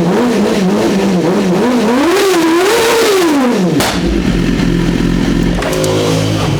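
BMW S1000RR's 999 cc inline-four, through a Brock's aftermarket exhaust, revved in quick blips, then a longer rev that rises and falls about three seconds in. As the revs drop there is a single sharp backfire crack, and the engine settles back to a steady idle near the end. Way too loud.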